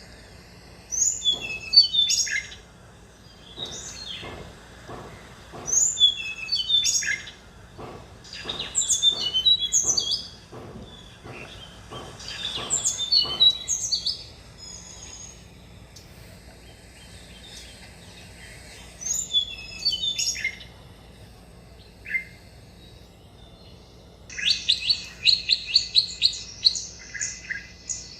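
Tickell's blue flycatcher singing: short sweet phrases of quick high notes, several stepping downward, repeated every few seconds, then a faster run of rapid notes near the end.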